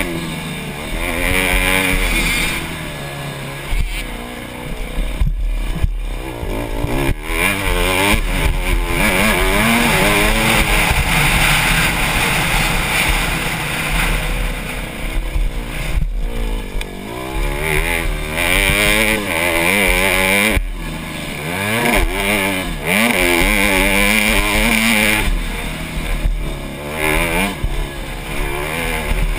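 Honda CRF150R's four-stroke single-cylinder engine at race pace, revving up and dropping again and again as the rider accelerates, shifts and rolls off for corners.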